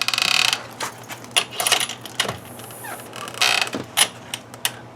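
Screen door and its worn-out closer being worked by hand: creaking with a run of scraping rubs and sharp metal clicks.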